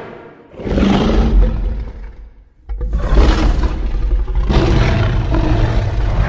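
Godzilla monster roar sound effects. The tail of one roar fades out, then comes a roar lasting about two seconds. After a brief crackle, a long roar with a heavy deep rumble starts about three seconds in.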